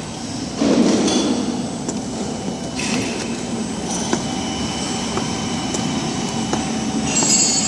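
Steady running noise of factory machinery, with a few sharp knocks and a faint high whine in the second half.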